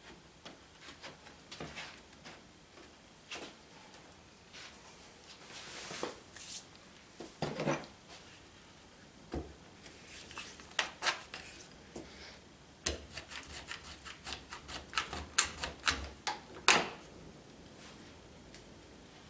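Pine boards being handled on a wooden workbench, with rubbing and light knocks of wood on wood. About two-thirds of the way through comes a rapid run of sharp clicks as bar clamps are set and tightened onto the boards.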